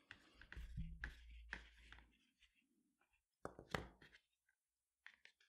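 Very faint handling of paracord as strands are tucked into a braid: a soft rustle and low rumble early on, then a few light clicks, one a little after a second and a close pair about three and a half seconds in.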